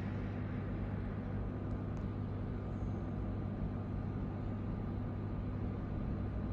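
A steady low hum with an even rush of noise, unchanging throughout: a machine or fan running.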